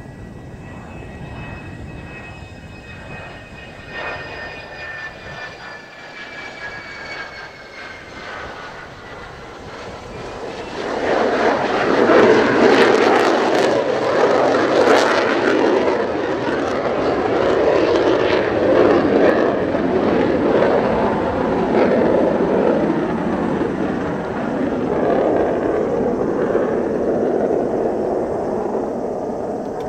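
Mitsubishi F-2 fighter's single F110 turbofan on a low approach: a high whine that slides slowly down in pitch as the jet comes in. About eleven seconds in, it gives way to a loud jet roar as the aircraft passes and flies away.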